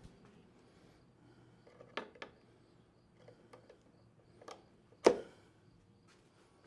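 A few light clicks and knocks of the chute rod and pin being fitted into a snowblower's discharge chute, the loudest a sharp knock about five seconds in.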